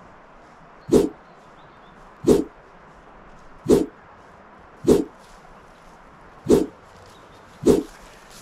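A dog barking, six single barks spaced a little over a second apart.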